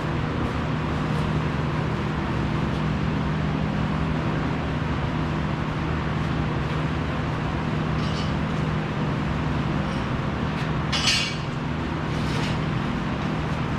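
Steady low machinery hum over a constant noise, with a short burst of hiss about eleven seconds in and two fainter ones around it.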